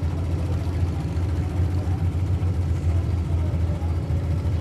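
Demolition derby truck engines idling steadily, a low even rumble.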